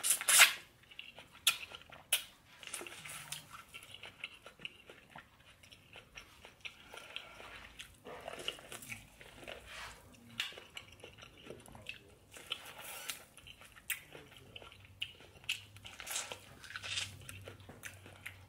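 A person eating close to the microphone: chewing with wet mouth smacks and clicks, irregular throughout, with the sharpest smack about half a second in.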